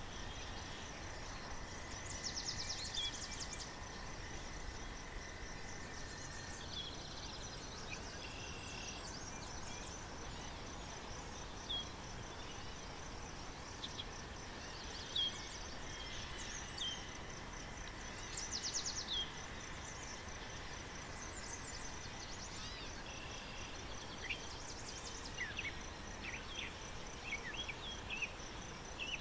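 Pond-side natural ambience: a steady high-pitched insect chirring with a fast even pulse, with scattered short bird chirps and two brief rapid trills. The egret itself is silent.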